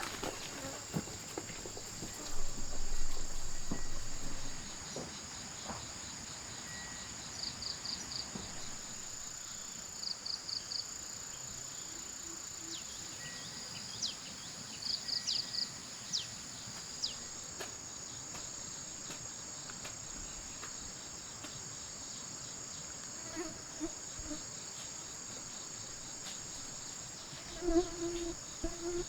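Steady high-pitched drone of insects, typical of crickets, with short bursts of rapid chirps now and then and a brief louder rustle about two seconds in.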